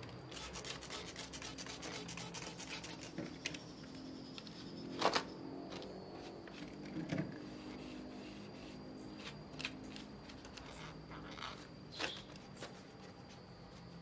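A wet sponge scrubbing a PVC pipe perch stand: fast rubbing strokes for the first few seconds, then slower, scattered scrubs, broken by a few sharp louder hits, the loudest about five seconds in.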